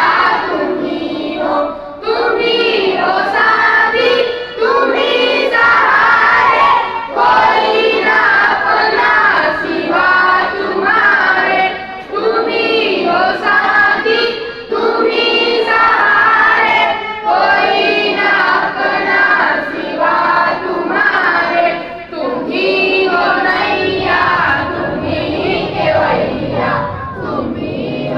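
A large group of children singing or chanting together in unison, in phrases of a second or two with brief breaths between them.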